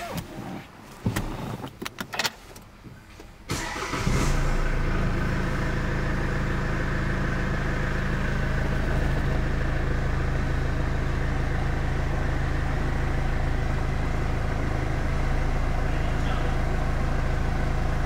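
A few sharp clicks and knocks, then about four seconds in an Infiniti Q50's engine starts and settles into a steady idle.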